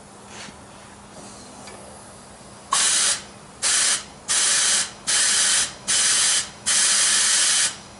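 Compressed air blown into an automatic transmission's third-clutch passage in six short hissing bursts, the last the longest. No thud of the clutch piston applying comes with them, a sign that the third clutch circuit is not taking air.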